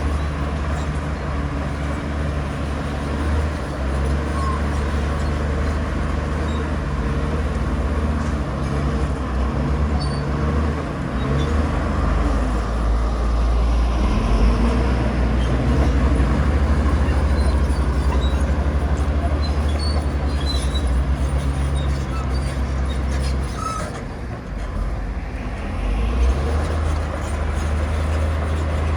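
Heavy diesel earthmoving machinery running steadily, a deep engine drone that eases off briefly about twenty-four seconds in.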